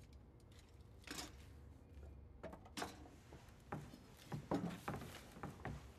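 Quiet room with a few faint soft knocks and rustles, one a little over a second in and several more in the second half.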